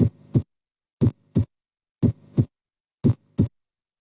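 Recorded heart sounds: four lub-dub beats about a second apart. Each beat is the first heart sound followed about a third of a second later by the second heart sound.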